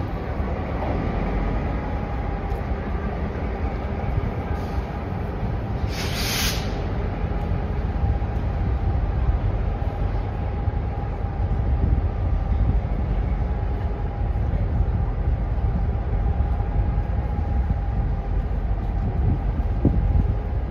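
Freight train hauled by Taiwan Railway R-class diesel-electric locomotives running through the station: a steady heavy rumble of wheels on rail with a faint ringing tone, and one short hiss about six seconds in.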